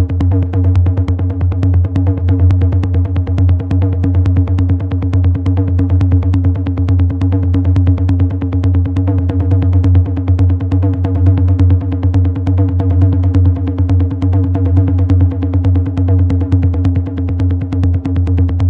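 Techno played on a Roland TR-8 drum machine: a steady low bass tone and held higher notes under a fast, even ticking beat.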